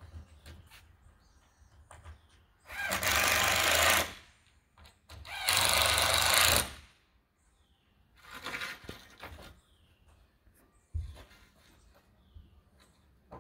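Cordless impact driver driving screws into a 2x4 wall brace: two runs of about a second each, then a shorter one, with small knocks of wood between them.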